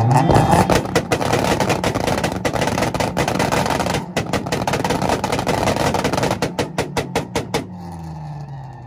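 A car engine held on its two-step rev limiter, the exhaust popping and banging in a rapid, ragged string. The bangs come faster near the end, then stop after about seven and a half seconds as the throttle is let off and the revs fall away.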